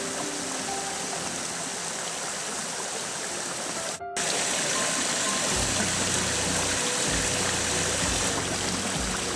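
Creek water rushing over rocks: a steady hiss, with faint background music under it. It drops out briefly about four seconds in, then comes back louder with irregular low thumps.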